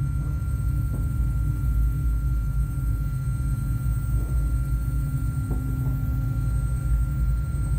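A loud, steady low rumbling drone, with a few faint ticks over it.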